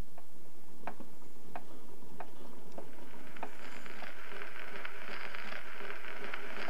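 Slow, even ticking, about one tick every two-thirds of a second. From about halfway, crackling hiss rises in, like the surface noise of an old cylinder phonograph record starting to play.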